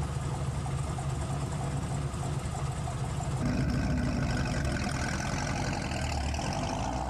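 A car engine idling steadily, a little louder from about three and a half seconds in.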